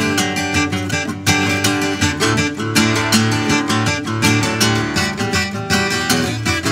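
Background music led by a strummed acoustic guitar, with quick, even chord strokes.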